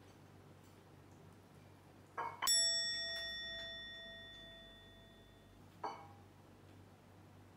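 A bell-like chime sound effect, struck once about two and a half seconds in and ringing down over about three seconds. A short swish comes just before it, and another about two seconds from the end.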